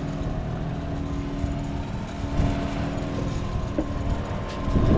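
Wind buffeting the microphone with a rough, uneven rumble, over a steady low motor hum.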